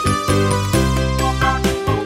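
Background music: a tune with held bass notes under a melody.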